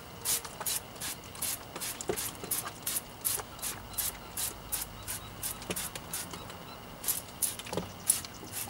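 Hand trigger spray bottle of solvent-based dressing pumped over and over, each squeeze a short hiss of spray, about three a second, with a brief pause about two-thirds of the way through.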